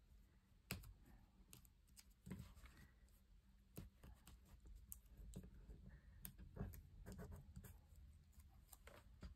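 Near silence with faint, scattered taps and rustles of paper being handled, as small paper embellishments are tucked around a title on a scrapbook page.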